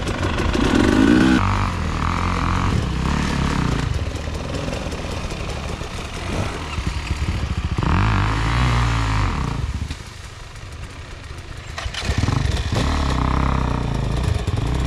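Enduro dirt bike engines revving under load on a steep, rocky climb, pitch rising and falling. The sound eases off for a couple of seconds about ten seconds in, then picks up again.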